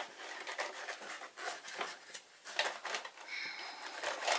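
Scattered light clicks and taps of small painting tools and supplies being handled on a work table, with a short high squeak about three seconds in.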